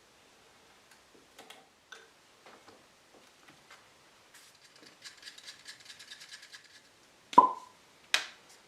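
Small objects being handled on a workbench: scattered light clicks, a quick rattling run of ticks for about two seconds, then a sharp knock with a brief ring and one more sharp click near the end.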